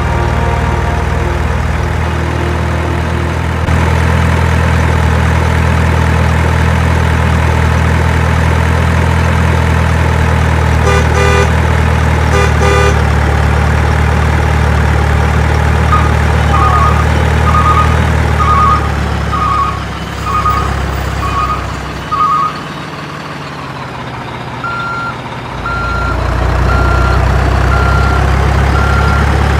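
Truck engine running steadily, then a reversing alarm beeping for several seconds partway through. The engine drops away briefly, and a higher-pitched beeping, about once a second, carries on to the end.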